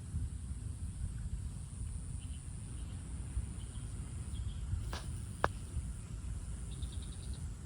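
Outdoor ambience: a steady low rumble with faint insect chirps and a thin, high, steady tone. About five seconds in, two short, sharp sounds come half a second apart.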